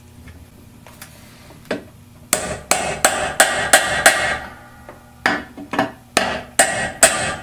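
Hammer tapping a seal driver to drive a new shifter shaft seal into a Turbo 400 (TH400) transmission's aluminium case: about a dozen sharp, ringing metal taps, two or three a second, in two runs with a short pause midway.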